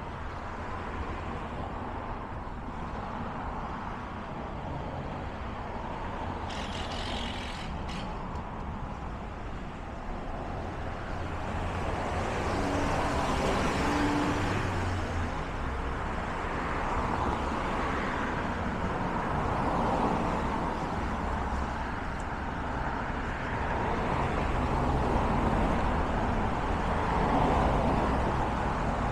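Steady city street traffic: cars and other vehicles passing on a busy arterial, swelling louder from about a dozen seconds in and rising again as each vehicle goes by. A short high hiss comes about seven seconds in.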